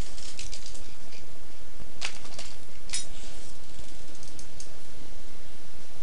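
Steady background noise with a few scattered sharp clicks, the clearest about two seconds and three seconds in.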